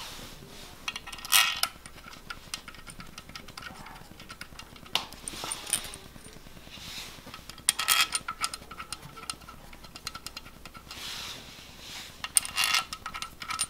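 Small metal parts clinking and rattling in short bursts, loudest a little over a second in, around eight seconds and near the end: the bolts of a BMW N54 engine's vacuum pump being handled and threaded into place.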